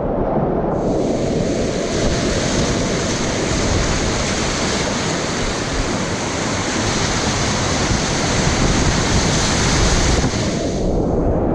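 Whitewater of the Middle Fork Satsop River rushing loudly at high flow, with wind buffeting the microphone. A bright splashing hiss comes in about a second in and fades near the end.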